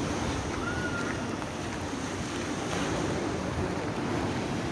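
Waves washing on the shore of a choppy sea, with wind buffeting the microphone.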